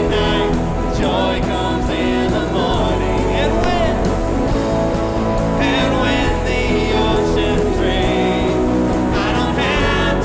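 Contemporary worship band playing a song with a singer's voice over sustained keys, guitar and bass.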